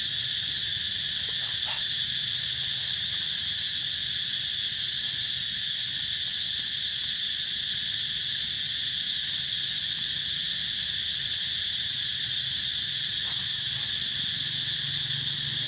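A dense chorus of insects shrilling steadily, high-pitched and unbroken.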